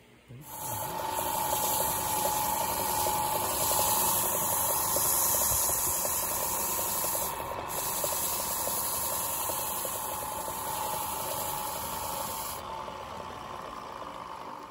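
A wood lathe starts just after the beginning and runs with a steady motor whine, while a wad of dried plant fibre pressed against the spinning wooden bowl hisses as it burnishes the surface. The hiss stops near the end, and the lathe keeps running.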